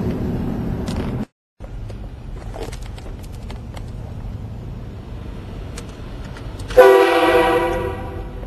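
Aftermarket train horn on a Dodge Durango sounding one loud chord blast of about a second, near the end, over a steady low rumble.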